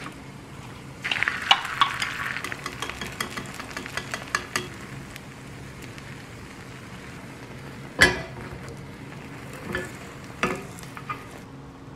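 Beaten egg poured into a hot, oiled rectangular tamagoyaki pan sizzles and crackles for a few seconds, then dies down. A sharp knock about eight seconds in, then a few lighter taps of a wooden spatula against the pan as the omelette is rolled.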